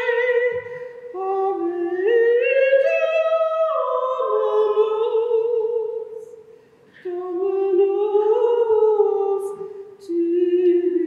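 A woman's voice singing unaccompanied, holding long wavering notes and sliding between pitches in phrases, with a pause about six seconds in.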